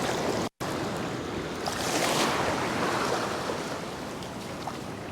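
Ocean surf washing up the beach, swelling about two seconds in and then easing off. The sound cuts out for an instant about half a second in.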